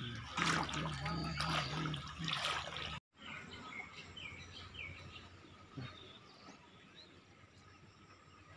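A louder sound with a low, wavering pitch for about three seconds, cut off abruptly. Then faint outdoor ambience with a few short bird chirps and a steady low hiss.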